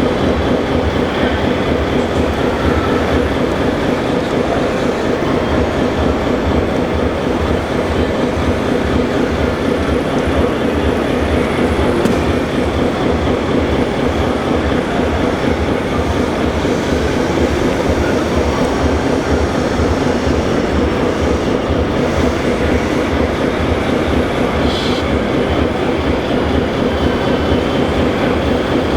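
Motors of a 1/14-scale RC construction model running steadily: a continuous mechanical drone with a fast, even low pulsing.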